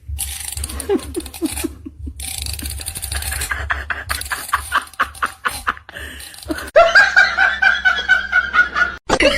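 A person laughing in repeated pulsing bursts, getting louder about seven seconds in and cutting off abruptly near the end.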